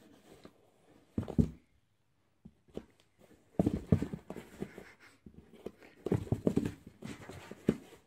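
Soft thumps and scrapes on a cardboard box as a cat inside bats at a socked foot pushed into the box's hand-hole. They come in short flurries: about a second in, again from about three and a half to five seconds, and again around six to seven seconds.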